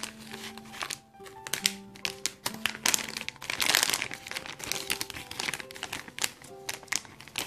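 Foil wrapper and clear plastic zip bag crinkling in quick rustles as they are handled and pulled apart, over soft background music with held notes.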